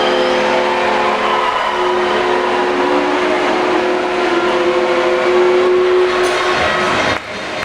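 Ice rink's air horn sounding one long multi-tone chord over crowd noise, cutting off about seven seconds in.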